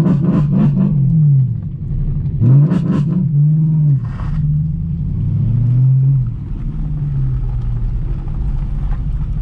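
BMW E92 M3's 4.0-litre V8 with a straight-piped exhaust, heard from inside the cabin as it is driven, revving up and easing off about three times, then running steadier and lower for the last few seconds.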